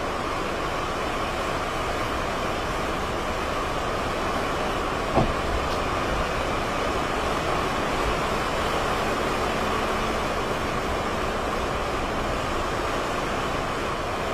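Strong hurricane wind blowing steadily through palms and trees, with a low rumble of wind on the microphone. A single short knock about five seconds in.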